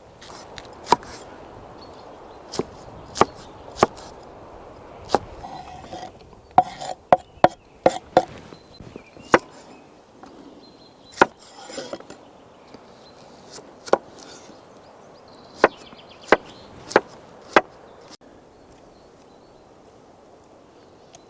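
Irregular sharp chopping knocks on wood, about twenty strokes, with a quick run of about six a third of the way in. The knocks stop a few seconds before the end.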